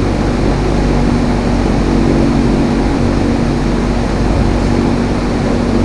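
Flathead Briggs & Stratton 5 hp single-cylinder engine running steadily with a constant drone.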